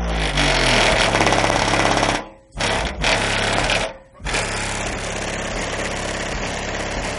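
Loud bass-heavy music played through two AQ HDC3 15-inch subwoofers on an AQ 3500D amplifier, heard from outside the car, with a fast buzzing rattle riding on the bass as the car's panels and mirror shake. The sound cuts out briefly twice, about two and a half and four seconds in, then carries on steadily.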